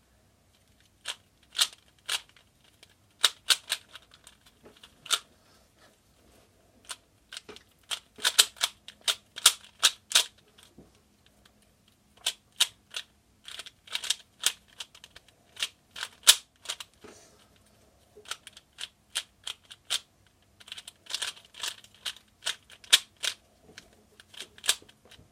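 Plastic speed cube (Valk 3) being turned fast by hand during a solve: sharp clicking layer turns in quick irregular flurries, with short pauses between them.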